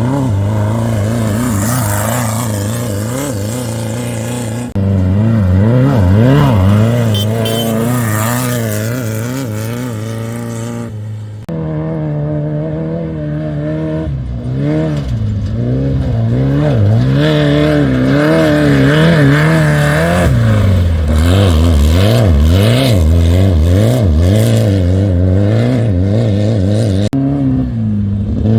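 Off-road race vehicles' engines running hard, the pitch rising and falling again and again as the throttle is worked over rough terrain. Several shots of different vehicles follow one another, with sudden changes in the engine sound about five, eleven and twenty-seven seconds in.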